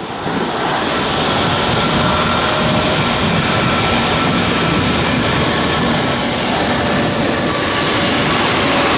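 Jet engines of an Airbus A320neo (Pratt & Whitney PW1100G geared turbofans) running at low thrust as the airliner taxis after landing: a steady loud rush with faint whining tones through it. Near the end a high whine slides down in pitch.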